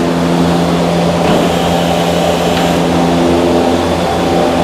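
Steady mechanical drone of a running motor, a constant hum with a low pulsing throb underneath.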